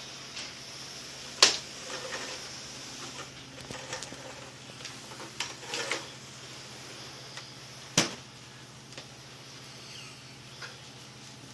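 Vacuum cleaner motor running with a low, steady hum and hiss, broken by sharp knocks about a second and a half in and again about eight seconds in, with a few lighter clicks between.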